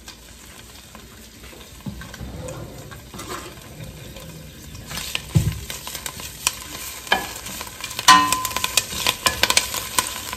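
Wooden spoon stirring fresh thyme and bay leaves in hot olive oil in a stainless steel pot, with a light sizzle. Scrapes and knocks of the spoon on the pot come about halfway in and grow frequent near the end.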